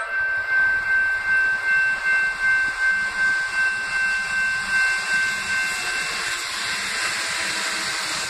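Level crossing warning bell ringing in a steady pulse of about two strokes a second, fading over the first few seconds. Under it the rushing noise of an approaching electric suburban train grows steadily louder.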